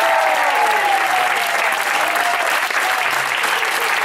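Audience applauding, with voices calling out over the clapping.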